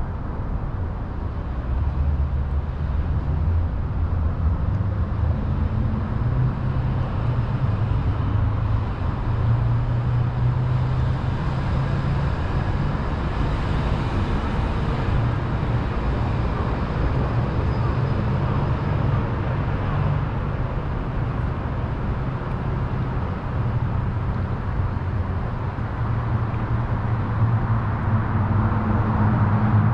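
Steady low rumble of road traffic with a shifting engine hum, growing a little louder near the end.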